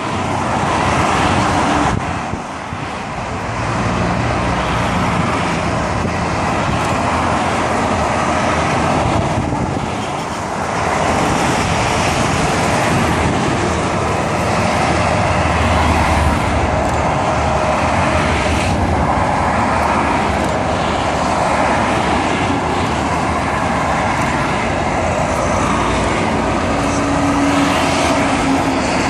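Motorway traffic of heavy trucks and cars passing below: steady tyre and traffic noise, with the low engine notes of individual lorries coming and going as each one passes.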